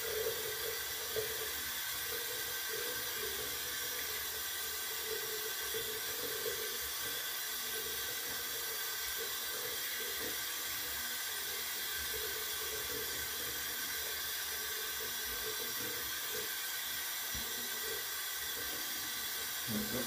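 Water tap running steadily into a bathroom sink while the face is rinsed with handfuls of water, the rinse at the end of a straight-razor wet shave.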